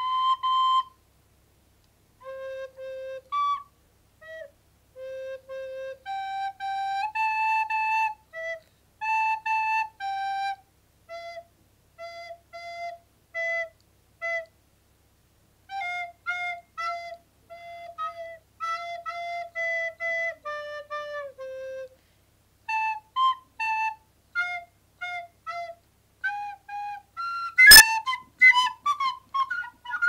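A plastic recorder played note by note in a slow practice melody, each note held briefly with short gaps and pauses between phrases. A single sharp click about three-quarters of the way through is the loudest sound.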